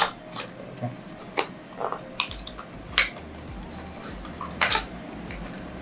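Hands opening and handling a small cardboard accessory box of cables over a foam-lined case: about half a dozen scattered clicks and taps with soft rustling between them.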